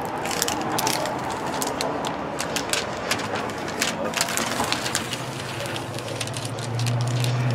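Clear plastic protective film crackling as it is peeled back off the strongly glued surface of a diamond-painting canvas, an irregular run of sharp crackles and clicks. A low steady hum sits underneath and grows louder near the end.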